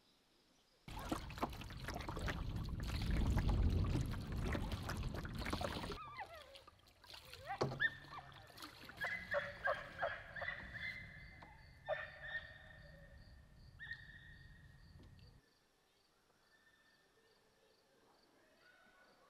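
Canoe paddling on calm water: a loud rushing noise for the first few seconds, then a string of separate paddle splashes, drips and light knocks that stop about three-quarters of the way in.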